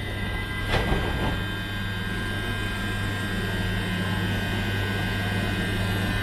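London Overground electric train standing at the platform, its electrical equipment giving a steady low hum and a high whine, with a sharp knock about three quarters of a second in.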